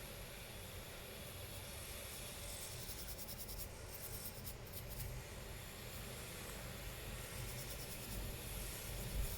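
Faint rubbing and light scratching over a steady hiss, with a cluster of small ticks about three to five seconds in.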